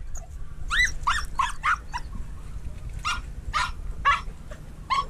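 Hunting dog giving short, high-pitched yelping barks at a mink hidden in the brush: a quick run of five about a second in, then four more about half a second apart.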